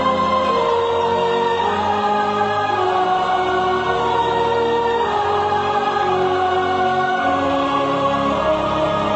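Choral music: voices holding long, slow notes that step from one pitch to the next, over a low sustained accompaniment.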